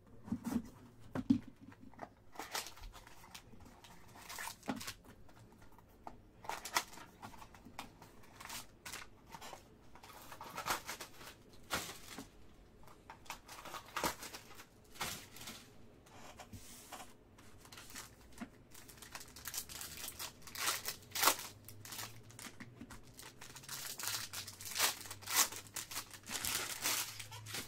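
A sealed box of Panini Black football cards being slit open with a utility knife, then its plastic and foil wrapping torn and crinkled off by hand in irregular rustles, busiest near the end.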